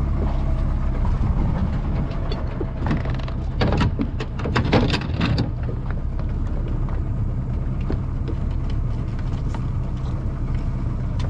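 Boat's outboard motor idling steadily, with a burst of clattering about three seconds in that lasts a couple of seconds as the anchor and its chain are let go over the bow.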